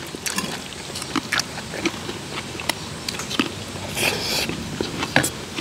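Several people eating at close range: chewing, lip smacks and small clicks as they bite into green onion kimchi and curry rice, with a short slurp about four seconds in.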